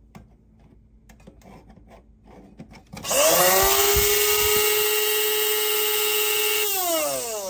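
Electric blade coffee grinder motor spinning up about three seconds in, running steadily for a few seconds, then winding down. It starts as soon as it is plugged in because coffee grounds are stuck in its lid safety switch. A few faint handling clicks come before it.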